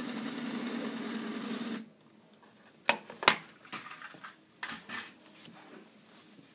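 Lego toy train's electric motor running and its wheels rattling along plastic track, stopping suddenly a little under two seconds in. After that, a few light sharp clicks, two close together near the middle.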